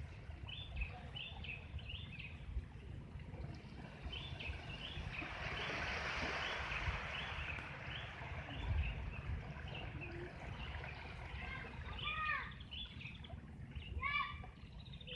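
Repeated short high chirping calls from an animal, with a few louder calls near the end that sweep downward in pitch, over a low rumble of wind or handling noise.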